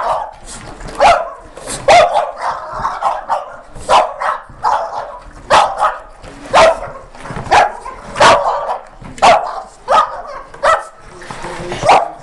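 A dog barking again and again, about one sharp bark a second, set off by the sound of a vacuum cleaner.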